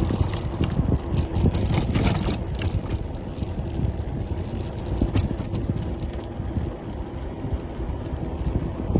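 A bicycle rattling continuously as it is ridden over a rough tarmac road, with many quick clicks over a steady low rumble.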